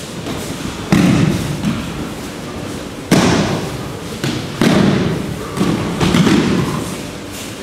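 Bodies hitting tatami mats in aikido breakfalls (ukemi): about five heavy thuds, one to two seconds apart.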